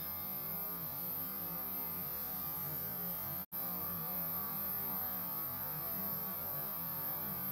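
Steady electrical hum with a faint hiss. It drops out completely for an instant about three and a half seconds in.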